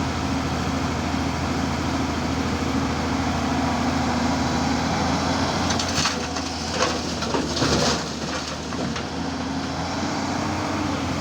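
The diesel engine of a Tata 200 Super hydraulic excavator running steadily. About six seconds in, rattling and scraping of rock and earth lasts about two seconds.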